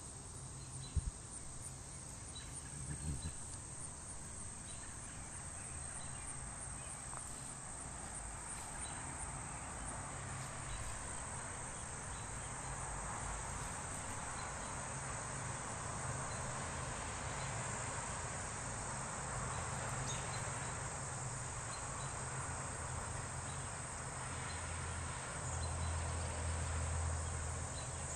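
A steady, high-pitched insect chorus over a low rumble on the microphone. There is a sharp knock about a second in, and the rumble swells near the end.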